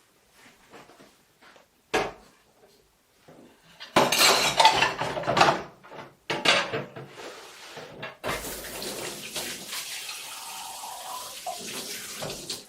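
Washing up at a kitchen sink: running tap water splashing, with dishes and cutlery clinking. A sharp knock comes about two seconds in and loud clattering follows a couple of seconds later. Then the water runs steadily until the tap is shut off near the end.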